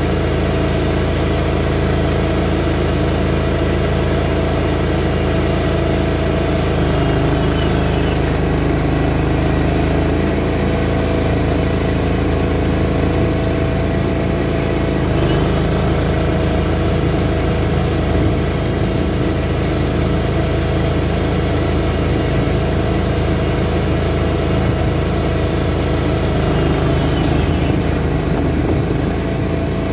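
Greens mower engine running steadily while mowing, its pitch shifting slightly a few times.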